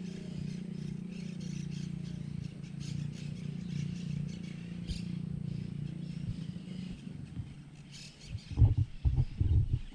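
Birds chirping over a steady low drone that fades about seven seconds in, followed near the end by a run of loud, low thumps.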